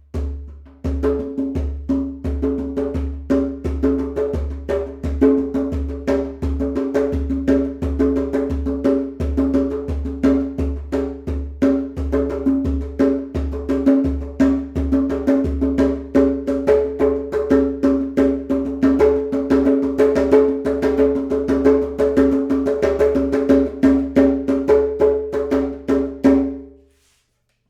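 A full-size rope-tuned djembe played by hand in a steady, fast rhythm, its strokes mixing a deep bass with ringing open tones. The playing stops about a second before the end.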